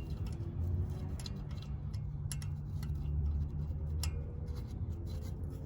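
Scattered light metal clicks from handling the brake rotor and its small Phillips retaining screws, over a steady low hum.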